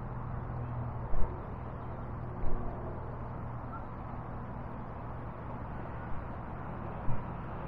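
Steady low outdoor rumble, with brief low thumps about one and two and a half seconds in and twice more near the end.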